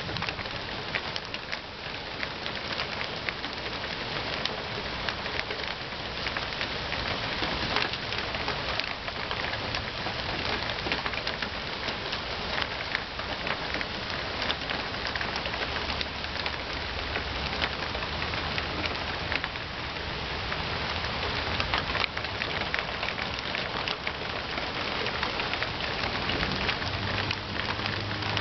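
Steady thunderstorm rain falling, a dense, even hiss made up of many small drop hits.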